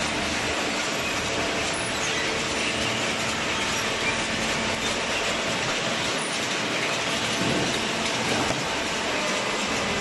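Chain-driven plate conveyor of a cardboard baler running with a steady mechanical clatter as it carries loose cardboard.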